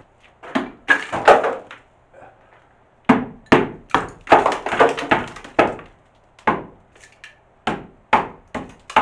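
Hammer blows knocking old plaster off a masonry wall: a run of sharp, irregular knocks, roughly two a second, with a pause of about a second after the first three.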